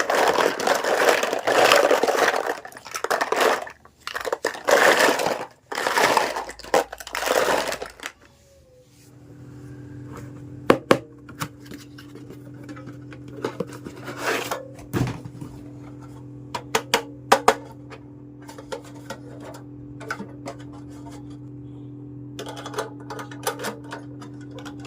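Plastic packaging crinkling and being crushed in loud bursts, then a steady low hum with scattered sharp clicks and taps of small hard toy kitchen pieces being handled.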